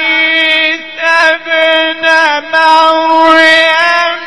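A man reciting the Quran in a melodic, chanted style, holding long drawn-out notes and bending them into ornamented turns, with a few brief pauses for breath.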